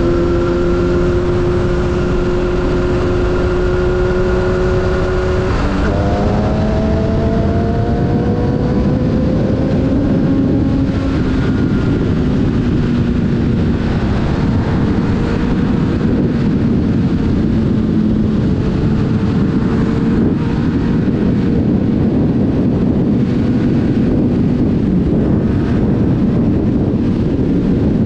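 Sport motorcycle engine running hard at freeway speed. About six seconds in, its pitch drops sharply and then climbs again, as in a gear change while accelerating. Heavy wind rush on the microphone grows and mostly covers the engine in the later part.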